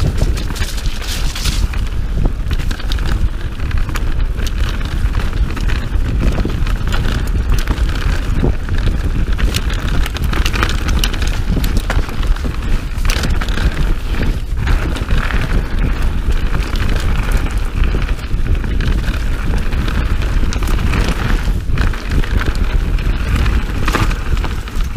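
Mountain bike descending a rough dirt singletrack: tyres crunching over dirt and roots, with constant chain and frame rattle and many small knocks. Wind rushes over the camera microphone, giving a steady low buffeting under it all.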